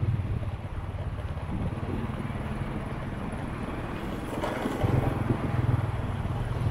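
Street traffic: a motor vehicle engine running nearby as a steady low hum, growing louder about five seconds in, over general street noise.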